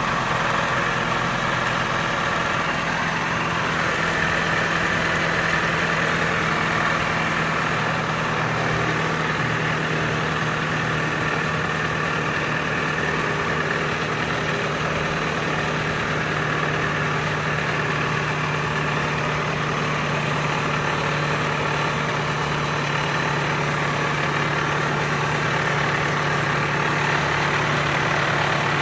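1998 Toyota Camry engine idling steadily with an even low hum.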